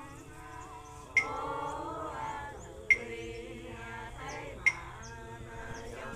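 Ritual funeral chanting by a group of voices holding long sung notes. It is punctuated by a sharp ringing percussion strike about every second and three quarters, three times.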